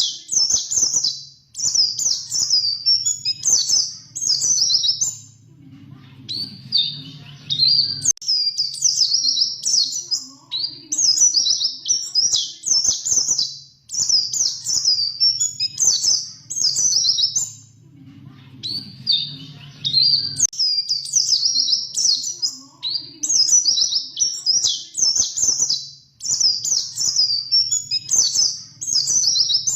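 White-eye (pleci) singing a fast, high-pitched twittering song. The phrases are about a second long and come in runs with brief pauses, over a faint low hum.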